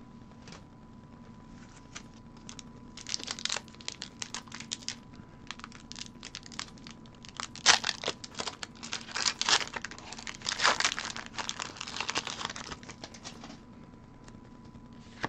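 A Pokémon booster pack's foil wrapper being torn open and crinkled. The crackling starts about three seconds in, is loudest in the middle, and stops shortly before the end.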